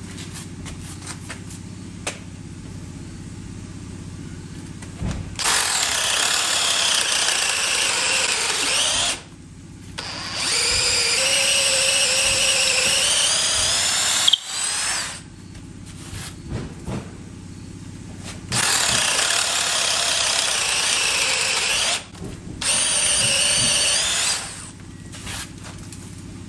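DeWalt DCD709 20V Atomic brushless drill in drill mode, boring through pine boards with a wood-boring bit. There are four runs of high motor whine mixed with the chewing of wood, the first starting about five seconds in, each ending as the bit is pulled out. In the second run the pitch sags under load and then climbs, and small knocks fill the pauses between runs.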